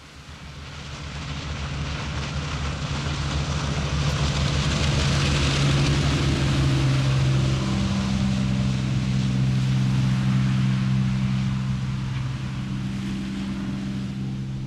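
A 9 m Fluggaboat workboat's engine drones steadily at speed over a rush of water, spray and wind. It grows louder over the first few seconds and eases off near the end as the boat passes and turns away.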